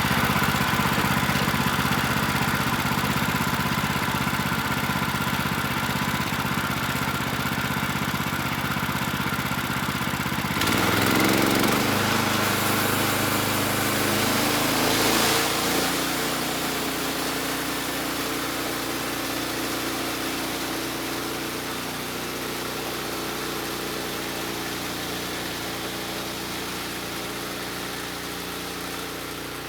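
Portable sawmill's gasoline engine running steadily. Its sound shifts and briefly grows louder about ten seconds in, then settles lower and a little quieter.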